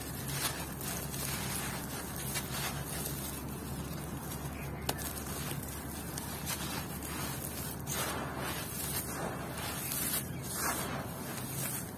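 Lumps of dry, compacted red dirt crushed by hand, crumbling into grit that pours onto loose gravelly soil. A steady gritty hiss, with louder crunches every second or two; the title calls it super crunchy.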